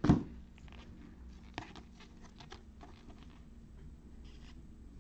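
Sports trading cards being flipped through in gloved hands: faint scattered ticks and rustles of cardboard cards sliding over one another, after a single thump right at the start.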